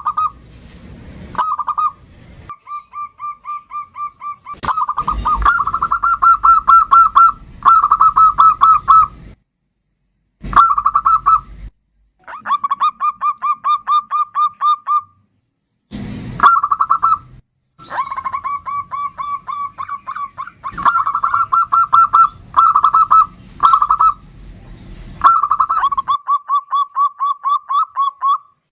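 Zebra dove (perkutut) in full song, cooing in repeated phrases of rapid, rolling notes, with brief pauses between phrases.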